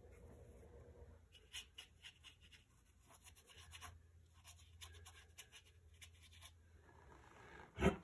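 Nearly dry paintbrush dragged in short, scratchy strokes across rough watercolor paper (dry-brush technique), in quick runs of several strokes. A louder knock comes near the end.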